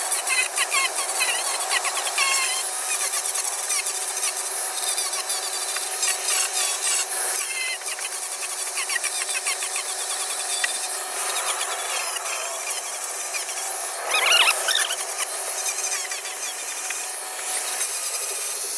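Angle grinder with a sanding disc on a rubber backing pad, running steadily and sanding carved wood: a constant motor whine under the rough rasp of the disc on the wood, with wavering squeals as the disc is pressed into the curves, loudest about fourteen seconds in.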